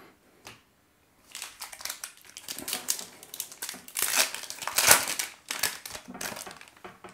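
Trading-card pack wrapper crinkling as a pack is opened and the cards are pulled out: an irregular run of crackles, loudest about four to five seconds in.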